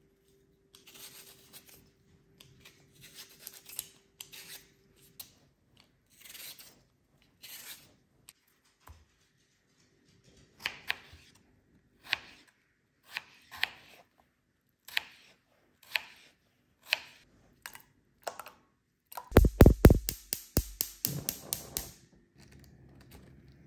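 A potato being peeled with a small blade, in short scraping strokes. Then a knife slices through the potato onto a plastic cutting board with sharp clicks about once a second. Near the end a gas hob's igniter clicks rapidly for about two seconds as the burner is lit.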